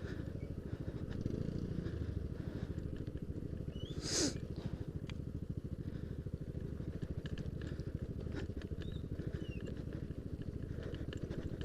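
Yamaha Aerox scooter's single-cylinder engine running with a rapid, steady low pulsing. About four seconds in there is a brief, louder squeal that falls sharply in pitch.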